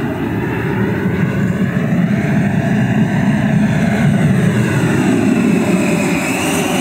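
Large electric ducted-fan model jet (JETFAN-120 PRO fan on a HET 800-73 motor) flying by with a steady rushing roar and fan whine. The whine rises in pitch and gets brighter near the end.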